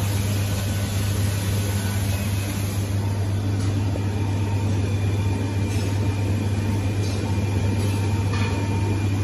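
UV inkjet label printer running mid-print: a loud, steady mechanical hum with a strong low drone.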